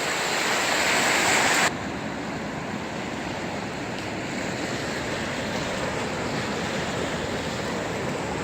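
Ocean surf washing on the shore, a steady rushing noise that drops suddenly to a quieter, even wash about two seconds in.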